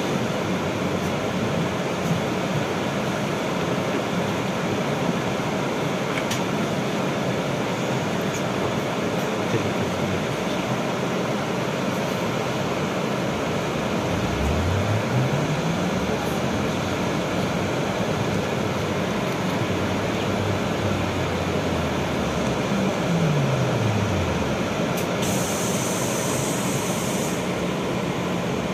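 Steady rumble and hum inside a BKM 32100D trolleybus. About halfway through, the electric traction drive's tone rises in pitch as the trolleybus pulls away, holds, and then glides back down a few seconds later. A brief high hiss follows near the end.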